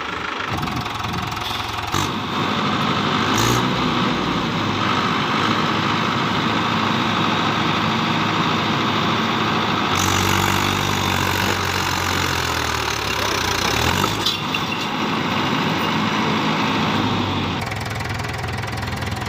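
Swaraj 843 XM tractor's three-cylinder diesel engine running hard under load as the tractor tries to pull its loaded trolley out of mud, getting louder about two seconds in and easing back near the end.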